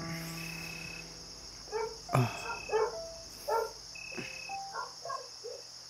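Crickets chirping steadily in a night insect chorus. A sharp thump comes about two seconds in, and several short, low sounds come and go through the middle and latter part.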